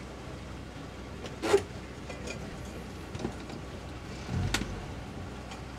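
Low steady hum of the towboat's twin outboard engines running, with a sharp knock about a second and a half in and a dull thump with a click about four and a half seconds in.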